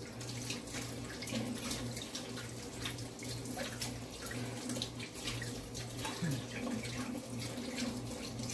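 Kitchen tap running into a sink, with splashing as hands are washed under it, over a low steady hum.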